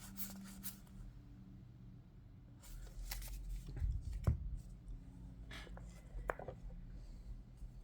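Yu-Gi-Oh! trading cards being handled and sorted: scattered soft slides and light taps of card stock, the clearest tap about four seconds in, over a faint steady low hum.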